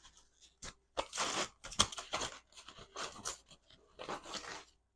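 Packaging being handled and pulled off a stand mixer's safety guard: irregular crinkling, crunching and tearing, with a few sharp clicks.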